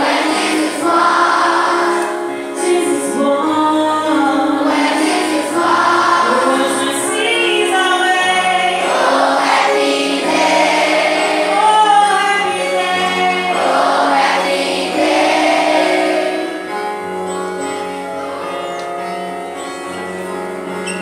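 Music with a choir singing in long, sustained phrases over steady low notes.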